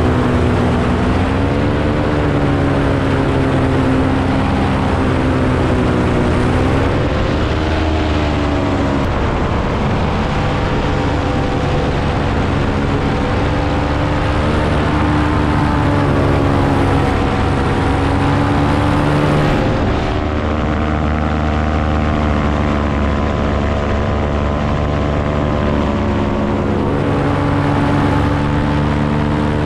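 Paramotor engine and caged propeller running at close range, its pitch rising and falling several times.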